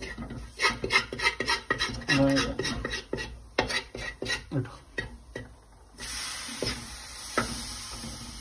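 A metal spoon scraping and clinking against a stainless-steel pan as onion masala is stirred, in many quick strokes. About six seconds in, a steady sizzle starts suddenly as chopped tomatoes go into the hot pan.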